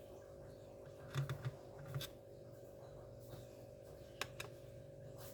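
A few faint clicks and taps of hands working the laptop's hard drive loose for removal: a small cluster about a second in, one at two seconds and a sharper click a little after four seconds, over a steady faint hum.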